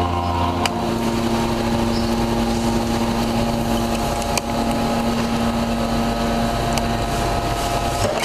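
Hydraulic metal scrap baler running: a steady machine hum made of several tones, with a few sharp metallic clicks. The deepest part of the hum drops away about a second in.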